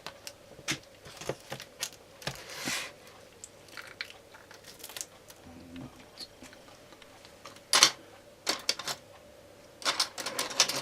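Irregular light clicks, taps and short scrapes of an iPad 2 being worked on with safe opening tools during a screen repair, with the loudest cluster about eight seconds in and another near ten seconds.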